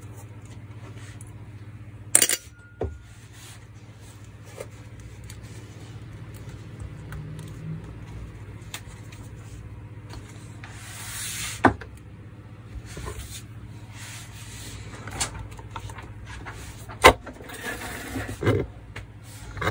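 Metal parts and tools handled while the motor of a Metabo MFE 40 wall chaser is dismantled on a workbench: a few sharp clinks and knocks and stretches of scraping and rubbing, over a steady low hum.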